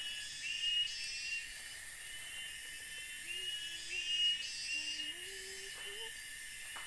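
Forest insects keep up a steady high-pitched drone, with a short chirp repeating about once a second.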